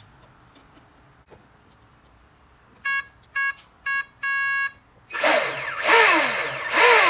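Brushless RC boat's speed controller sounding three short arming beeps and one longer beep, then its brushless motor whining in three quick throttle bursts on the stock 3S battery. Each burst falls in pitch as the motor spins down.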